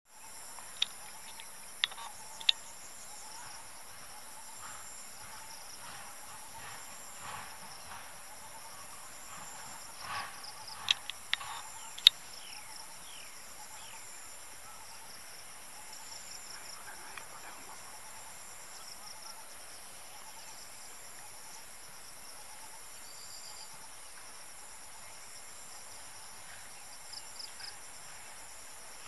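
Steady, high-pitched chorus of insects. A few sharp snaps or clicks stand out above it, about a second in, twice more near two seconds, and a cluster around ten to twelve seconds in.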